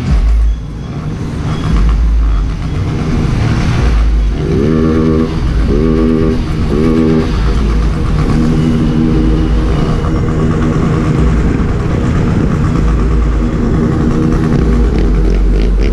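Motorcycle engine heard from on board while riding in a group of motorcycles, running steadily. About four and a half seconds in it revs up three times in quick succession, each rise cut short, like accelerating up through the gears.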